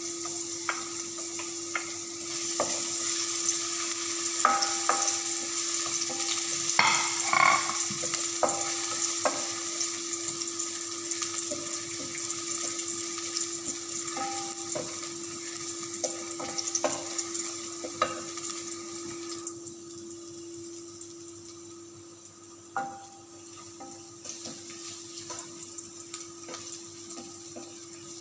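Chopped garlic sizzling in hot oil in a pan, with the utensil clicking and scraping against the pan as it is stirred. The sizzle drops away sharply about two-thirds of the way through. A steady low hum runs underneath.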